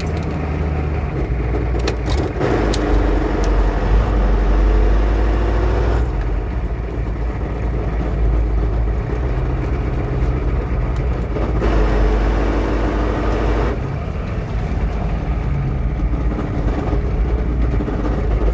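Hummer H1's 6.5-litre turbo-diesel V8 running, getting louder and heavier twice, about a quarter of the way in and again past the middle. The owner takes its rough running for a spun bearing or a failing harmonic balancer.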